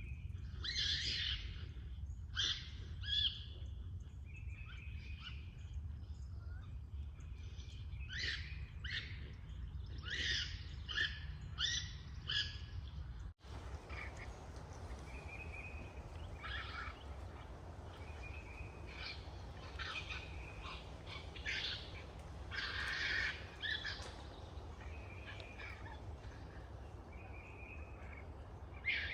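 Repeated high chirps and squeaky calls, some held briefly as short whistles, over a low steady rumble. There is a short gap about 13 seconds in.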